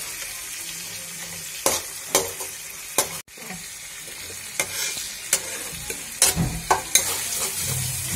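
Tomatoes, green chillies and onion-ginger-garlic paste sizzling in hot oil in a metal kadhai, fried on high flame until the tomato skins loosen. A spatula scrapes and knocks against the pan about once a second. The sound cuts out for an instant about three seconds in.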